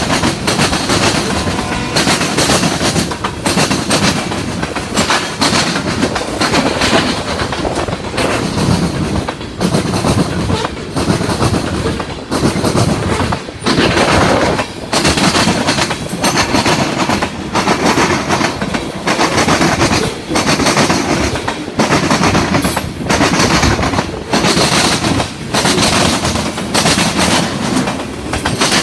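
Norfolk Southern freight train rolling past at close range, a steady loud rumble of wheels on rail. The wheels clack over the rail joints, and the sound dips every second or so as car after car goes by.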